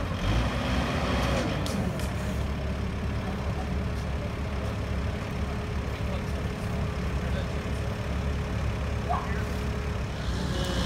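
Diesel engine of a red compact wheel loader running steadily, a low even rumble while it stands chained to the crashed pickup truck, ready to pull it out.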